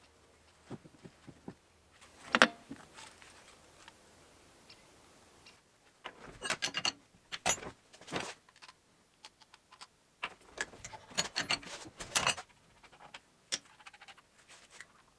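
Metal hydraulic hose fittings and hand tools clinking and clattering as they are handled against steel and a bench vise, in irregular clusters of clinks. The single loudest clank comes about two and a half seconds in.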